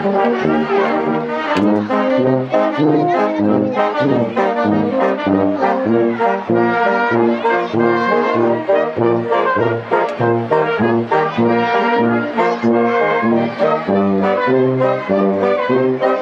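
Wind band playing a piece: brass, saxophones and clarinets over tuba bass notes in a steady beat, about two a second.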